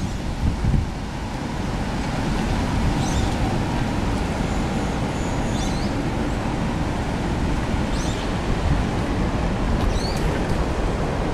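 Strong gusty wind blowing and buffeting the microphone, a steady low rushing noise. A few brief high chirps come through about three, six, eight and ten seconds in.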